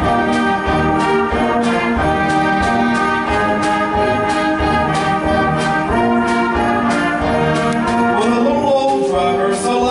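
Student concert band of woodwinds and brass playing held chords that change every second or so, over a steady percussion beat.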